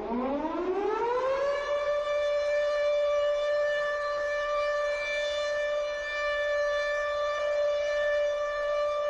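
Civil defense siren winding up, its pitch rising over about a second and a half and then holding one steady tone.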